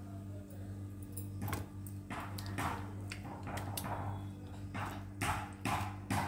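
Wet squelching and rubbing of fingers working thick masala paste into a pomfret fish on a plastic plate, a series of short strokes about every half second, over a steady low hum.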